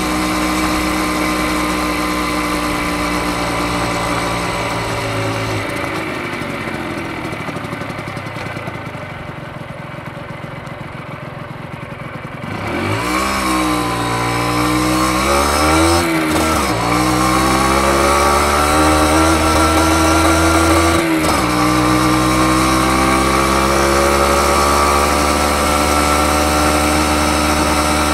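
Honda MB50's small single-cylinder two-stroke engine heard from the saddle. It runs steadily, then drops to a quiet low idle for several seconds as the bike slows. About halfway through it revs up sharply, its pitch dipping briefly twice as it changes up through the gears, and it pulls steadily with a slowly rising pitch near the end.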